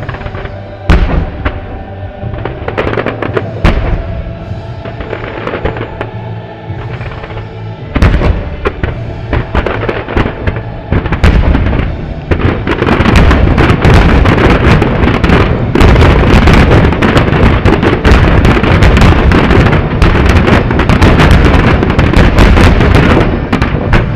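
Aerial firework shells bursting over music. At first there are separate sharp bangs, then from about twelve seconds in a dense, nearly continuous barrage of bursts: the rapid-fire finale of the display.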